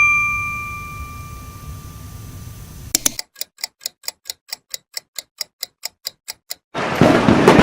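Clock-ticking sound effect: a run of evenly spaced sharp ticks, about four or five a second, lasting roughly three and a half seconds. Before it a bell-like ding fades out, and near the end a loud rushing noise cuts in.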